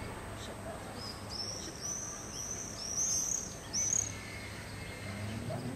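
A small songbird singing: a quick run of short, high chirps from about a second in until about four seconds in, over a steady low background rumble.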